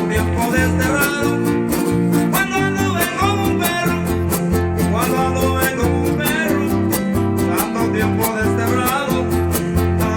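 Huapango played by a huasteco string trio: a violin melody gliding over steady strummed guitars, the jarana and the bass of the quinta huapanguera, in an instrumental passage without singing.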